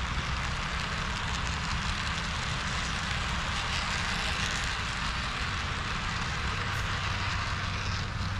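HO scale model train running on a layout: a steady hiss with a low rumble underneath, and a low hum coming in about two-thirds of the way through.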